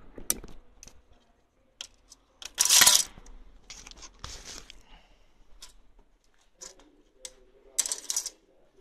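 Archery arrows being drawn out of a straw target boss and clicking and rattling against each other in the hand, with a louder scraping rasp a little before three seconds in.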